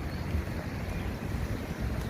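Wind buffeting the microphone outdoors: an uneven low rumble that rises and falls.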